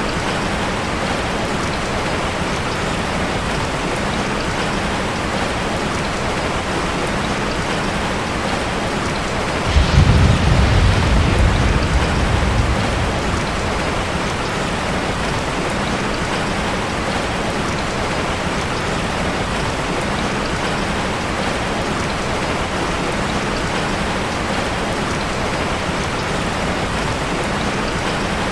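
Heavy rain falling steadily, with one thunder rumble that breaks in suddenly about ten seconds in and dies away over a few seconds.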